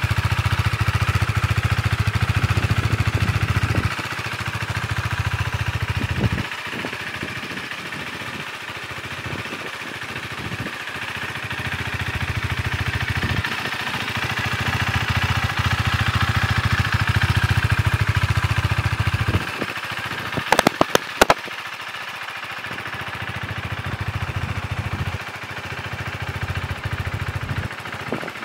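KTM 390 Duke's single-cylinder engine idling steadily, growing louder and quieter by turns. A few sharp clicks come about two-thirds of the way through.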